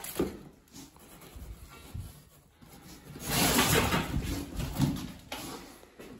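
Cardboard box flaps being handled and pushed aside, rustling and scraping, with a louder stretch of cardboard scraping from about three seconds in until about five seconds.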